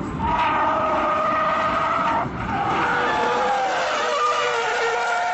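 Car tyres squealing as a sedan slides and spins in a drift. There are two long squeals with a short break a little over two seconds in.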